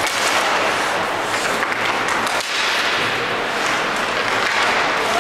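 Crowd noise in an ice hockey arena: a steady, dense wash of many voices and clapping with scattered sharp knocks, dipping briefly about two and a half seconds in.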